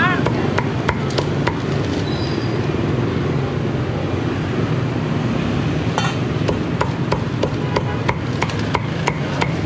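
Cleaver chopping crispy-skinned roast pork belly on a round wooden chopping board. A few sharp knocks come early, then a faster run of chops, about two or three a second, over the last few seconds.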